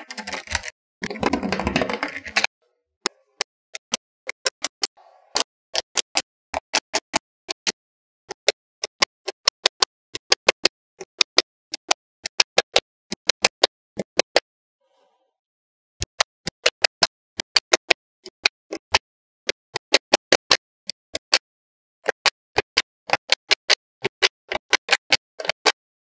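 Small magnetic balls clicking as they snap into place, a quick irregular run of sharp clicks, several a second, with short pauses. In the first couple of seconds a dense rattling rustle as a sheet of the balls is folded up and slides over itself.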